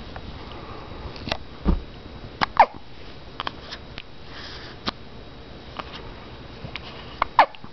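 Hiccups: a series of short, sharp hiccup sounds at irregular intervals. The loudest come about two and a half seconds in and near the end, each a brief squeak falling in pitch.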